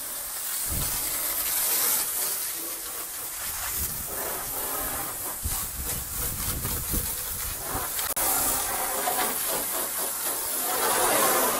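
Pressure washer jet spraying water against the fiberglass inside a boat hull's stringer compartments: a continuous hissing spray whose loudness shifts as the nozzle moves, loudest near the end.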